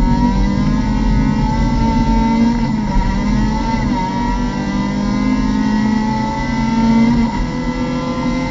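Mazda MX-5 Cup race car's four-cylinder engine under hard acceleration, heard from inside the cockpit. The pitch climbs, drops once about four seconds in as the driver upshifts, then climbs again.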